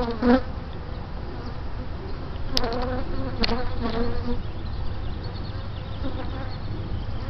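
Honeybees buzzing steadily around their hive box, with single bees flying close past and buzzing louder for a moment just after the start and a few times around the middle.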